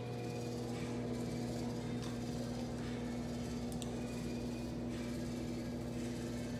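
A steady low hum with a few faint light clicks over it.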